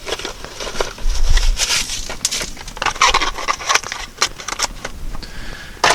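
Rustling and crackling from items being handled, with scattered clicks and light knocks and a brief low rumble about a second in.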